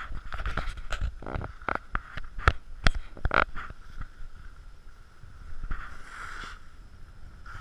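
Skis sliding and scraping over snow on a downhill run, with wind on the microphone and irregular sharp knocks and clicks throughout.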